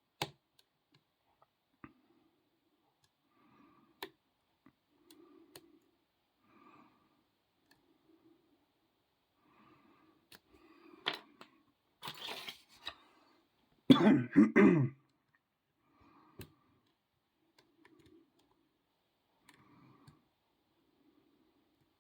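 Faint, scattered clicks and scrapes of a lock pick and tension wrench working the pins of a Master Lock No. 130 padlock. About two-thirds through, a louder throat clearing in two or three quick pulses.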